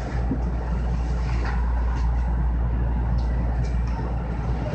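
Low steady rumble of a JR West 225-series electric train heard from inside the front car, behind the driver's cab, with a few short faint clicks.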